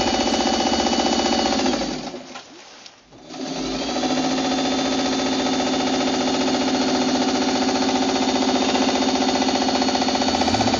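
Vintage electric sewing machine running at speed, its needle stitching in a fast, even rhythm over a steady motor hum. About two seconds in it slows and stops for a second or so, then starts again and runs on steadily.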